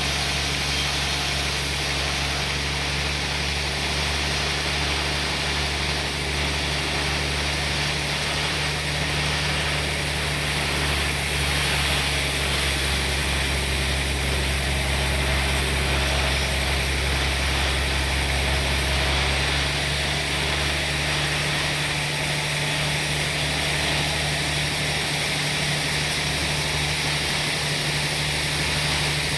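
Sawmill machinery running steadily: a constant machine hum under an even noisy hiss. About twenty seconds in, the low hum changes tone.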